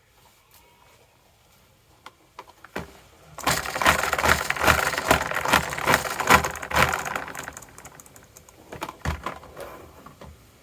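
Marbles clattering down a marble run track, a dense run of rapid clicks and knocks that starts about three and a half seconds in, grows loud, fades out about eight seconds in, and returns as a few scattered clicks near the end.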